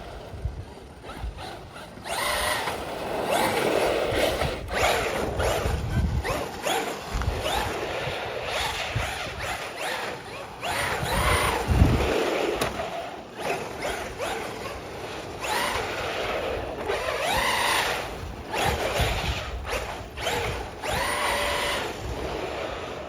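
Small electric power tool, like a cordless drill/driver, whirring in repeated short runs that rise and fall in pitch, with handling knocks in between, as wheel nuts are worked off to change the tires.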